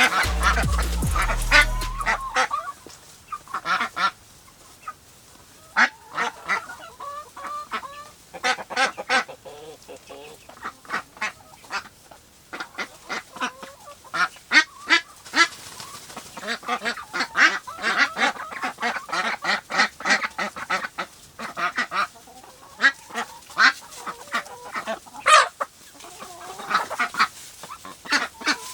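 Farm poultry calling, with many short calls in quick runs throughout. A low rumble underneath stops about two seconds in.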